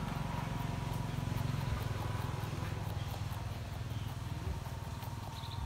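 Crested porcupine chewing a leaf of greens: quick crunching bites, about four or five a second, over a steady low rumble.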